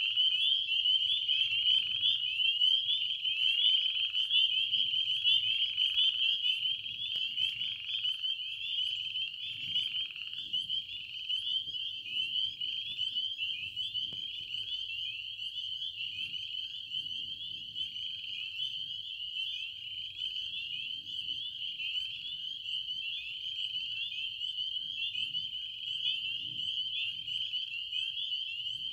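Chorus of many small frogs calling at once: a continuous high-pitched mass of short, overlapping rising notes. Through the first ten seconds a lower call repeats about every two seconds.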